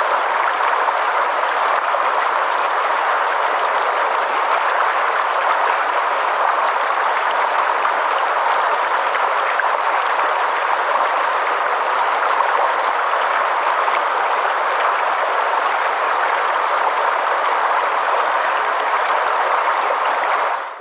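Steady rushing of flowing river water, even and unbroken, fading out at the very end.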